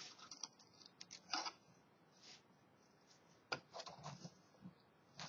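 Faint clicks and rustles of plastic LEGO Bionicle pieces being handled, the figure's joints moved into a pose. They come in two groups: a few clicks in the first second and a half, then a quick run of them about three and a half seconds in.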